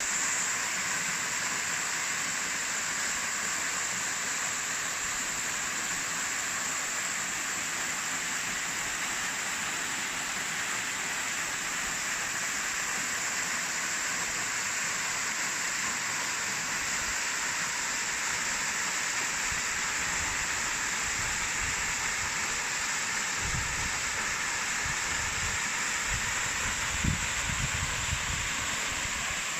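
Waterfall pouring: a steady, even rushing of falling water. In the last third come irregular low thumps on the microphone, the sharpest a little before the end.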